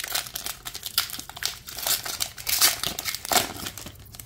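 Foil wrapper of a Pokémon card booster pack crinkling as it is torn open and pulled apart by hand: a dense run of irregular crackles, loudest in the second half.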